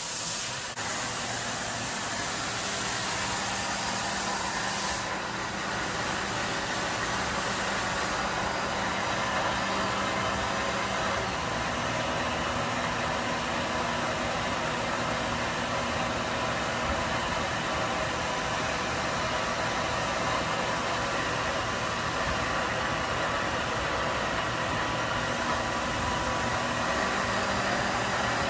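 Star SB-16D CNC Swiss-type lathe powered up and running: a steady mechanical hum with several held tones, one of which shifts in pitch about eleven seconds in. A high hiss drops away about five seconds in.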